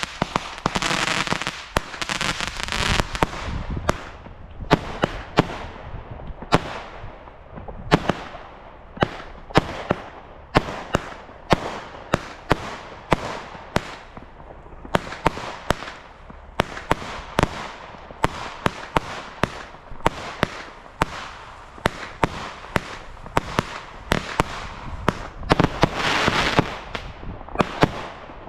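Consumer fireworks going off. A dense crackling hiss at the start gives way to a long run of sharp pops and bangs at uneven intervals, with another burst of crackling about 26 seconds in.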